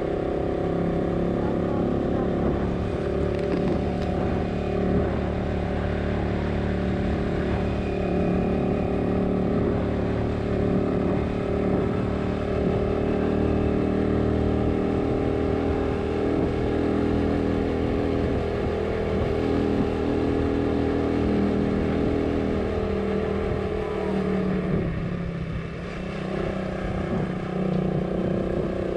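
Motorcycle engine running steadily while riding, easing off briefly near the end.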